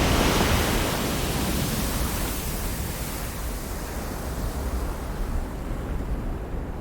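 A loud rushing noise sets in suddenly at the start and then slowly eases off over several seconds. It is steady, with no tone or rhythm in it.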